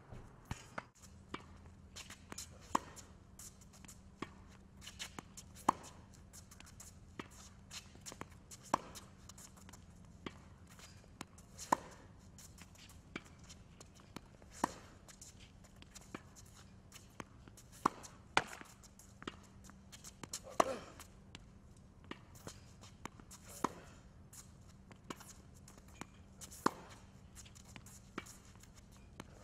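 Tennis racket striking the ball about every three seconds as a player hits groundstrokes, with lighter ball bounces and footsteps on the hard court between the shots.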